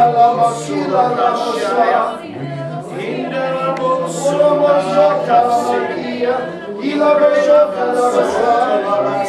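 A congregation praying aloud in tongues all at once: many overlapping voices, some of them singing, blending into a choir-like sound.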